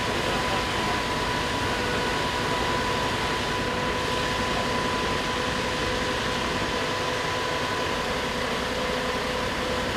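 Fire engine running steadily: a constant mechanical drone with a faint steady whine held through it.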